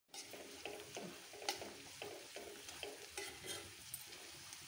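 Chopped onions with turmeric and chilli masala sizzling in hot oil in a kadhai, stirred with a steel spoon that scrapes the pan in repeated short strokes.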